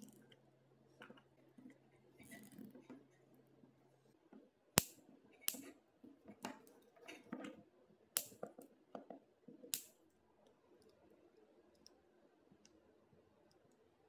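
Plastic zip ties being pulled tight and their tails snipped off with side cutters. There is faint rasping and handling at first, then a run of about five sharp snips and clicks, the loudest about five seconds in.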